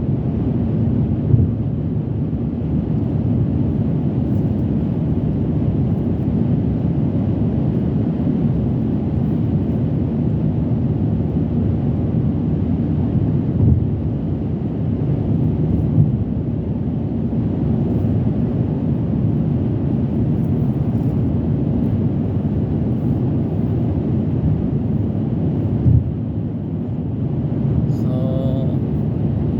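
Steady road and engine noise heard from inside the cabin of a moving Mercedes-Benz 172 car on a road test, with a few brief bumps.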